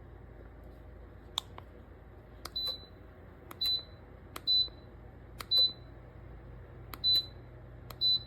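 Control buttons on a ceramic tower space heater being pressed: seven sharp clicks, six of them each followed at once by a short, high electronic beep confirming the press, about a second apart.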